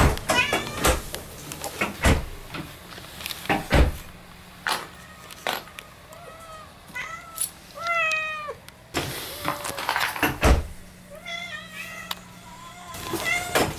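Domestic cat meowing several times in short greeting calls that bend up and down, most of them in a run in the middle and a couple more later. Sharp knocks and bumps sound in between.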